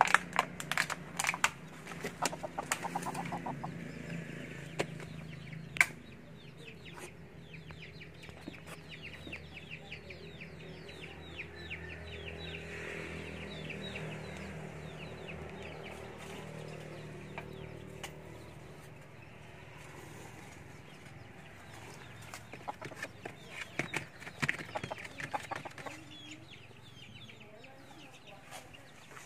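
Wild chicken clucking, with sharp clicks and rustles in the first few seconds and again near the end.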